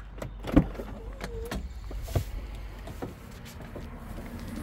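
A pickup truck door being opened and someone getting into the cab: two sharp clunks about a second and a half apart, with handling rustle between.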